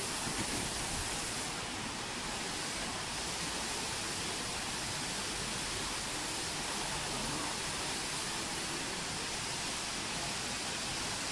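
The Ma Oya river rushing: a steady, even hiss of flowing water with no breaks.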